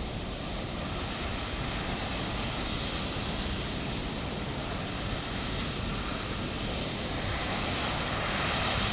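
Hopper wagons of a ballast train dumping crushed-stone ballast onto the track as they roll past: a steady rushing hiss of pouring stone over a low rumble from the train, the hiss swelling near the end.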